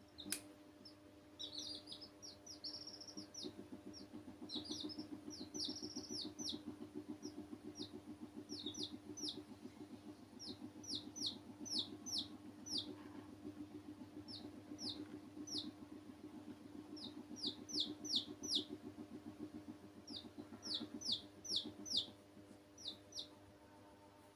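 Baby chicks peeping: short, high, falling notes in quick runs of two to five, repeated throughout over a steady low hum. A single sharp tap just at the start.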